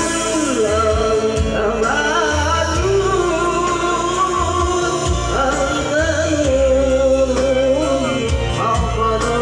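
Music with a voice singing a wavering melody over held bass notes.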